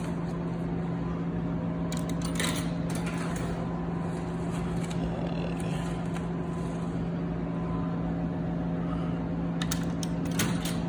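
Steady low electrical hum from vending machines, with a few light clicks and rattles about two seconds in and again near the end.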